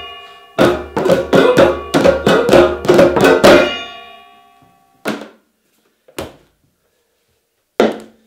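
Several overdubbed layers of percussion on household found objects played in a fast rhythm, with ringing tones hanging on after the strikes. It stops about three and a half seconds in and the ringing fades. Then come three separate single strikes, the last a mallet hitting a large clear plastic jug.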